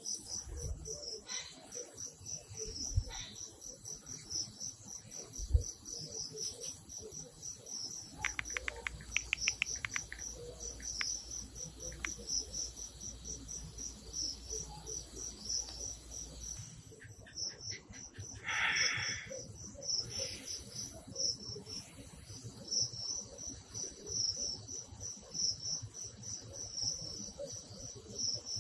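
Crickets chirping in a steady pulsing trill, with a quick run of phone keyboard taps about a third of the way in and a short burst of sound about two-thirds of the way in.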